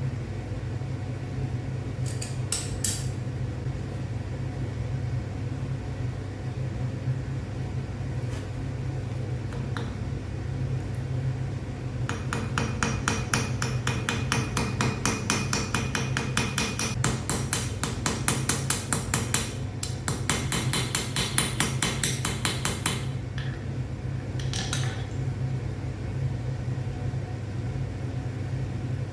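Hammer striking hot metal on an anvil: a couple of separate blows, then a fast, even run of light strikes lasting about ten seconds, and a last short cluster, over a steady low hum.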